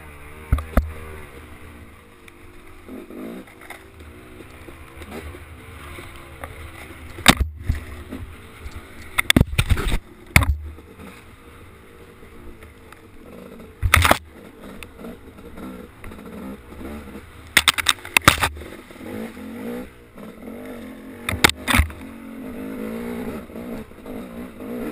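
Off-road vehicle engine running and revving up and down through a ride over rough trail, with sharp knocks and clatters as it jolts over rocks, several of them in clusters.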